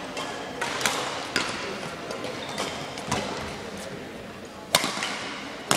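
Badminton rally: several sharp racket-on-shuttlecock hits about one to two seconds apart, the loudest a little before the end, in a large sports hall.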